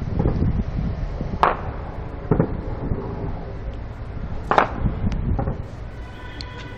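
Helicopter flying overhead, a low steady rumble, with scattered sharp gunshots cracking through it: five in all, the loudest about four and a half seconds in.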